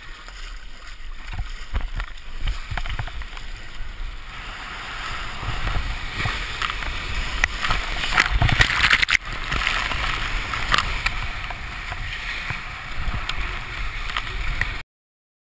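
Water splashing and rushing around a waveski as it is paddled onto a wave and rides it, with sharp splashes from paddle strokes and spray, loudest about eight to nine seconds in. Wind buffets the camera microphone throughout, and the sound cuts off suddenly near the end.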